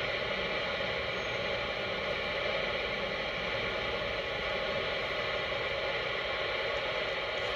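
Steady hiss of CB radio static between transmissions.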